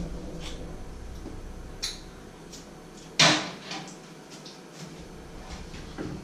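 Kitchen handling clatter at the stove: a sharp click, then a loud clatter about three seconds in, followed by a few lighter knocks and a dull thump near the end.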